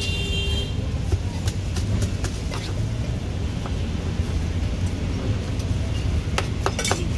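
Kitchen knife cutting fried banana on a plastic cutting board: scattered knocks of the blade on the board, with a quick run of chops near the end. A steady low rumble of passing traffic lies underneath, and a brief high tone sounds at the very start.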